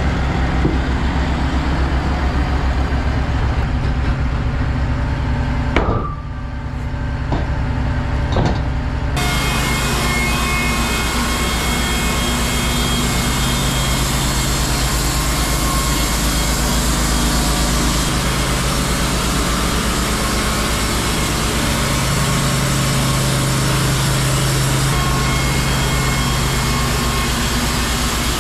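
Wood-Mizer LT15 Wide portable band sawmill running with a steady engine hum, with a couple of knocks. About nine seconds in, the band blade enters the log and the hiss of sawing through the wood joins in and carries on steadily.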